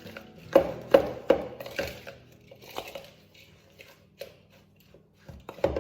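A mixing utensil knocking and scraping against a bowl while an oat, brown sugar, flour and melted-butter crumble topping is stirred into coarse crumbs. There are several quick strikes in the first two seconds, sparser ones after that, and another cluster near the end.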